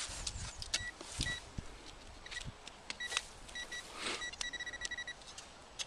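Handheld metal-detecting pinpointer beeping at one high pitch: a few short beeps, then a steady tone for under a second about four and a half seconds in, the sign of metal close to the probe tip. Soil crunches and scrapes as the probe works through the loose earth of the hole.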